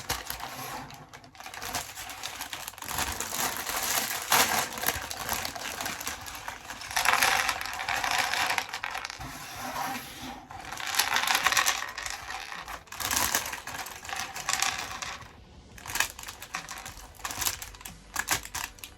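Plastic LEGO pieces clicking and clattering in dense runs, with several louder stretches of rattling.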